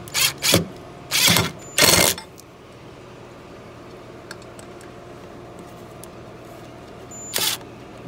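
Hands working a metal conduit fitting into a metal outdoor electrical box: a few short scraping, rubbing bursts in the first two seconds, then a low steady hum, and one more brief scrape near the end.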